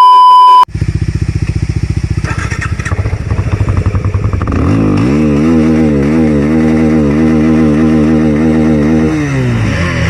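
A short, loud electronic beep tone, then a motorcycle engine idling with a rapid pulsing beat. About four seconds in it is revved up, held at high revs for several seconds, and drops back to idle near the end.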